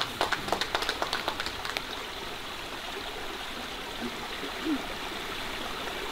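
Hand clapping that thins out and stops about two seconds in, then a steady hiss of running water, with a brief rising squeak about two-thirds of the way through.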